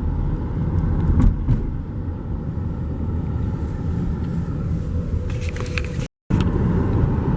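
Car driving, heard from inside the cabin: a steady low road-and-engine rumble with a few light clicks, broken by a brief total dropout about six seconds in.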